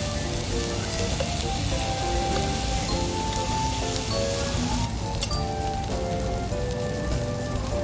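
Meat sizzling on a charcoal grill, a steady hiss that thins about five seconds in, under background music.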